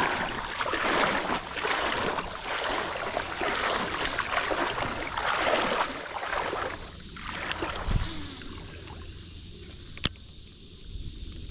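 Water splashing and rushing in irregular surges for about six seconds, then dropping to a quieter background, with one sharp click about ten seconds in.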